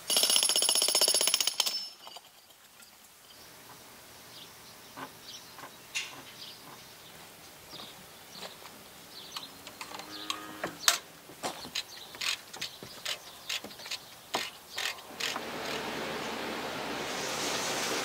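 Farm machinery and metal sounds: a loud mechanical burst for about the first two seconds, then scattered sharp metallic clicks and clanks, coming about twice a second in the middle. A steady rushing noise sets in near the end.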